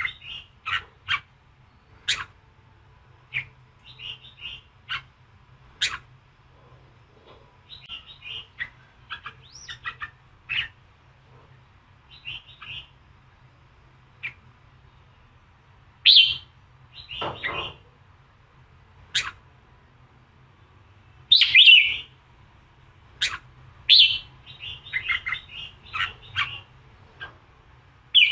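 Red-whiskered bulbul singing in the combative 'giọng kình' style: short, quick chirped phrases in irregular bursts with brief pauses between, loudest about halfway and again a little after. A faint low hum runs underneath.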